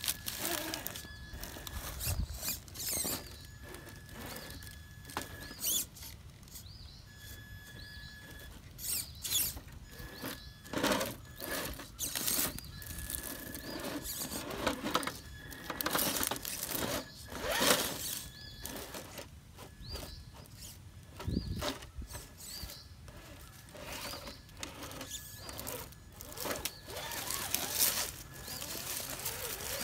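Traxxas TRX-4 Sport RC rock crawler creeping over rocks. Its electric drive gives a high, steady whine in short spurts as the throttle is worked, among repeated clicks, scrapes and crunches of tyres and chassis on rock and dry leaves.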